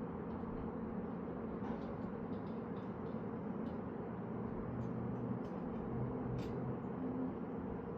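Steady background hum with a few faint, short clicks scattered through it.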